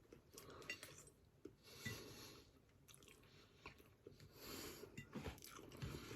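Faint chewing and eating sounds, with a few small scattered clicks, during a meal of curry and onion bhajis.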